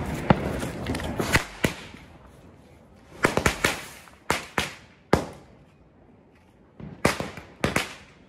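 Firecrackers bursting on the road: more than a dozen sharp bangs at irregular intervals, with a rapid cluster about three seconds in and another near the end.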